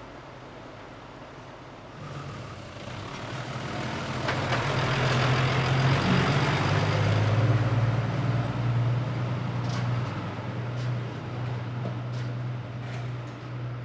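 Heavy vehicle engine running, getting louder from about two seconds in and staying loud, with a few sharp clanks in the last few seconds.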